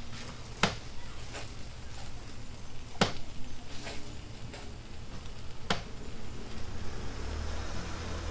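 Cooking utensils knocking and tapping at a toast griddle: three sharp knocks about two and a half seconds apart with fainter taps between, over a steady low hum.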